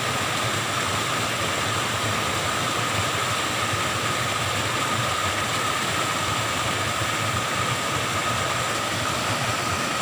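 Small waterfall swollen by heavy rain, pouring steadily into a muddy pool as a constant, even rush of water.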